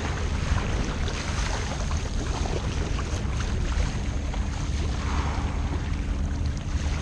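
Wind rumbling on the microphone over water splashing and lapping against a sea kayak and its paddle blade in choppy water, with a louder splash about five seconds in.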